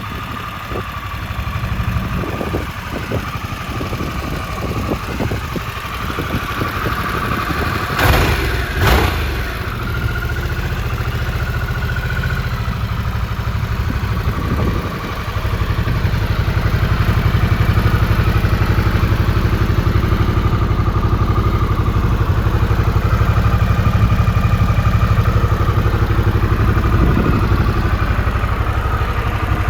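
Harley-Davidson Sportster S's Revolution Max 1250T V-twin idling, blipped twice in quick rev bursts about eight and nine seconds in, then running louder and steady from about halfway.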